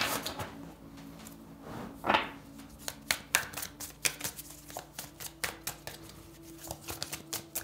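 A deck of oracle cards shuffled hand over hand: a run of quick, irregular card flicks and slaps, with a longer swish about two seconds in.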